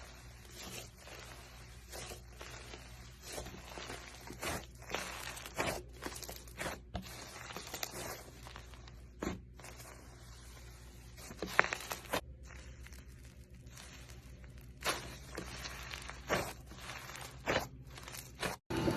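Slime being handled, with irregular crunchy clicks and crackles.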